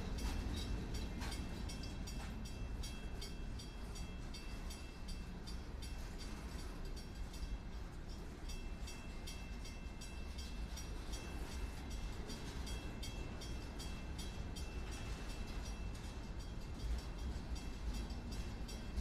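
Freight train cars rolling past close by: a steady low rumble with fast clicking of wheels on the rails, and a thin high squeal that sets in about eight seconds in and fades out after several seconds.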